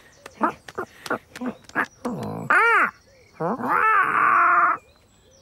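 Cartoon cat vocal effects: a string of short strained grunts, then a low groan rising into a cry, and a long harsh yowl about three and a half seconds in.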